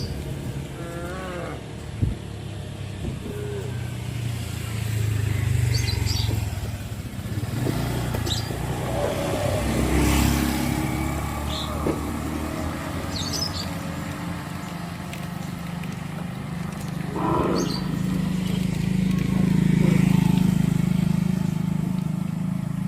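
Cattle herd moving along a road, with cows mooing now and then over the steady low running of a motor vehicle engine, likely a motorcycle.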